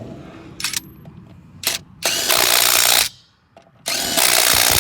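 Ridgid cordless 1/2-inch drive impact wrench hammering: two short blips, then two bursts of about a second each with a pause between, as it runs nuts back on and tightens them.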